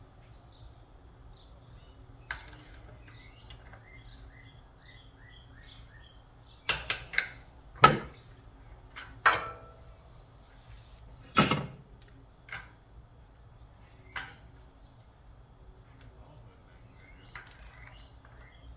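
Click-type torque wrench working the breather bolts, with sharp metallic clicks as it breaks over at its 23 ft-lb setting. There is a cluster of clicks about seven seconds in, a louder single click around eleven seconds, then a couple of fainter ones.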